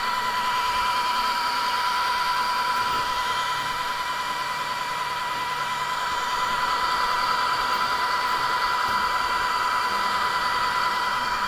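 Home-built 3D printer with a Phaetus Rapido hotend running a print: a steady, high-pitched whir of its cooling fans, with fainter shifting motor tones underneath as the print head moves.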